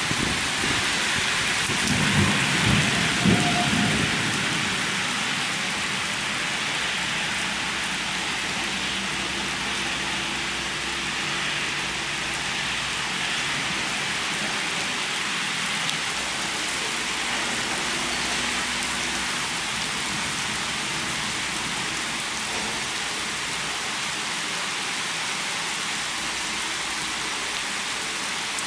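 Summer thunderstorm: steady heavy rain falling, with a low peal of thunder about two to four seconds in.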